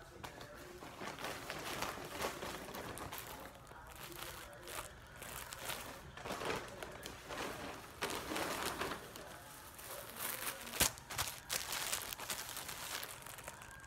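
Clear plastic bags around new shirts crinkling and rustling in irregular bursts as the packaged clothes are handled and shuffled, with a couple of sharper crackles near the end.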